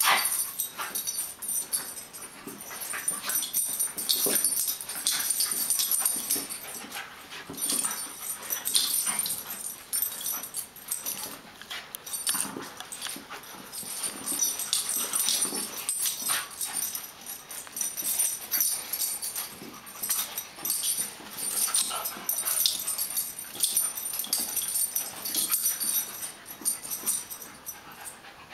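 A beagle and a wire-haired terrier puppy wrestling, with whimpers and yips in irregular short bursts.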